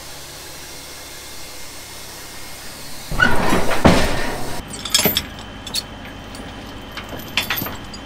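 Heavy load chains clinking and clanking on a wooden trailer deck and steel tracks as they are laid and drawn tight with a lever binder, a handful of sharp metallic clinks in the second half. Before that comes a steady low rumble and, about three seconds in, a loud rough noise of about a second and a half.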